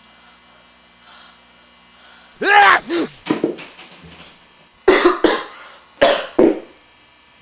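A boy coughing hard in several loud bursts, starting about two and a half seconds in and coming twice more near the end.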